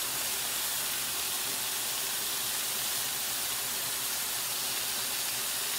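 Sliced onions and vegetables sizzling on a hot electric grill plate: a steady, even hiss.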